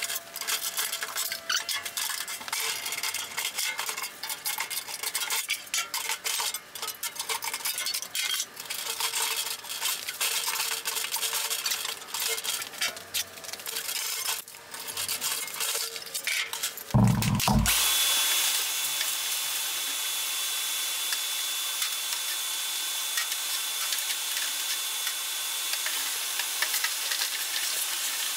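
Irregular metallic scraping, clicking and rattling as a steel tool-chest drawer and its slides are worked loose and pried. About two-thirds of the way through, a shop vacuum switches on and runs steadily with a thin high whine.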